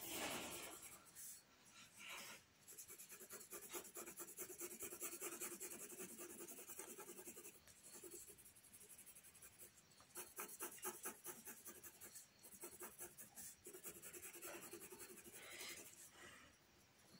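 Graphite pencil shading on paper: quick back-and-forth scribbling strokes, faint, in two long runs with a short pause between them.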